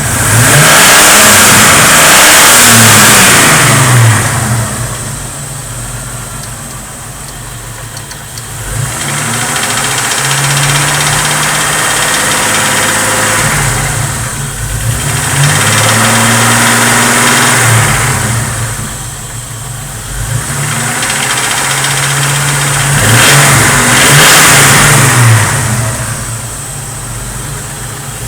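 Chevrolet 4.1 straight-six engine revved up several times and let fall back toward idle, the engine whose strange noise is being shown.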